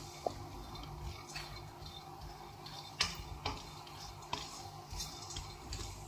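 Chopped nuts (almonds, cashews, pistachios) being stirred as they dry-roast in a pan, giving irregular light clicks and scrapes of the spoon against the pan over a low steady hum.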